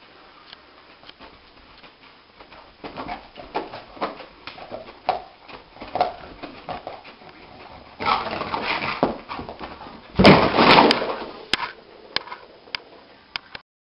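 A dog lying asleep on carpet whimpering and paddling its legs, its paws scuffing the carpet in quick strokes. About ten seconds in it scrambles up with a loud scuffle.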